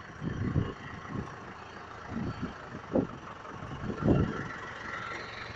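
Truck crane's engine running steadily, with a few short louder bursts over it about a second apart in places.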